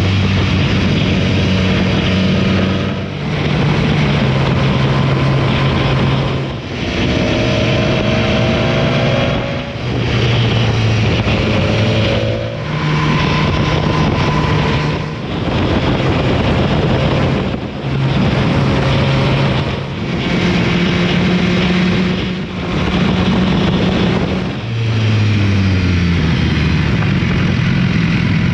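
Motorcycle engine running under way with heavy wind rush, its note holding steady and then stepping to a new pitch, with a brief dip in level every two to three seconds.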